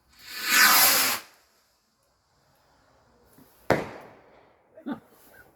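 Firework rocket launching with a hiss lasting about a second, then a single sharp bang about two and a half seconds later as it bursts.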